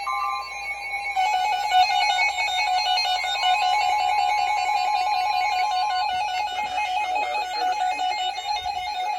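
Weather radio sounding its warbling alert for a tornado warning: a loud electronic tone switching rapidly between two pitches, starting about a second in. A steady higher tone sounds alongside it for a few seconds midway.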